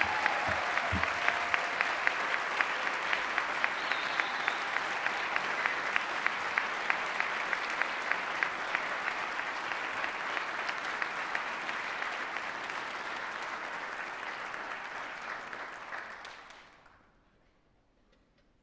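Audience applauding, with sharper claps standing out at about three a second through the first half; the applause fades away near the end.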